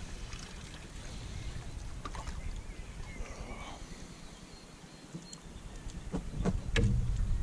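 Gusty wind rumbling on the microphone by the lough shore, easing off for a moment near the middle. A few faint clicks and chirps sit over it, and some knocks come near the end.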